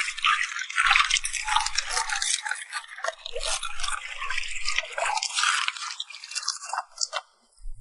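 Soybean oil pouring into a wok in a crackly, trickling stream that stops about seven seconds in.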